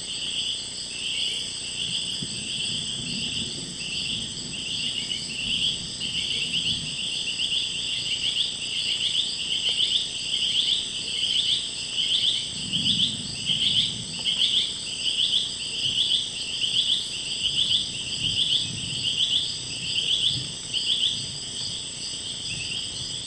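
Rainforest insect chorus: one insect calls in rhythmic pulses, about one and a half a second, over the steady high-pitched buzzing of others.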